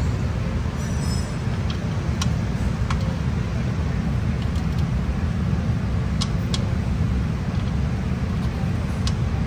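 A steady low background rumble, with a few separate sharp metallic clicks and taps from a ratchet and socket working a bolt.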